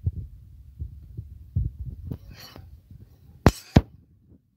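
Wire whisk stirring béchamel sauce in a metal saucepan: soft, irregular low knocks as it sweeps the pan, a brief scraping hiss about two seconds in, and two sharp clicks a third of a second apart a little later, the loudest sounds.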